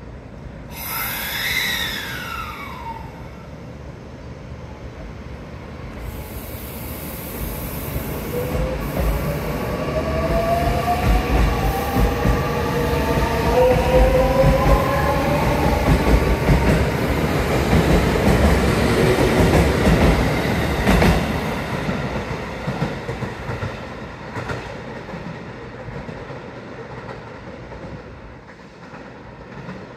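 JR Central 315 series electric train, coupled to a 313 series set, pulling out of the station: the traction motors' whine climbs in pitch as it accelerates, the wheels rumble and clatter loudest as the cars pass close by, and the sound then fades as the train leaves. A short falling tone with a hiss sounds about a second in.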